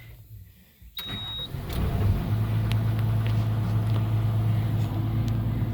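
Kobelco SK250LC excavator's diesel engine being started: a short high beep about a second in, then the engine cranks, catches and settles into a steady idle. This is the first start after replacing a burned-out pilot control solenoid.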